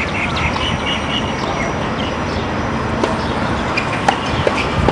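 Steady background noise of an indoor tennis hall between points, with a few faint ticks and short high squeaks.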